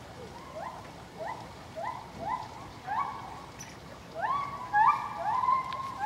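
Geoffroy's spider monkey calls: a series of short rising squeaks, about two a second, that become longer and louder about four seconds in, with calls overlapping near the end.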